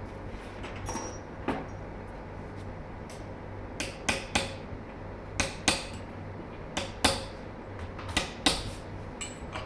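Sharp metal-on-metal taps and clinks, about a dozen, many in quick pairs, from work on a Holset turbocharger's centre housing held in a steel bench vise.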